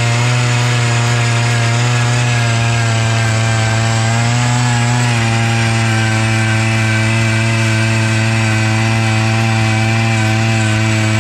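Power ice auger's small engine running steadily at full throttle while the auger bores through lake ice. Its pitch sags slightly about five seconds in as the bit works under load.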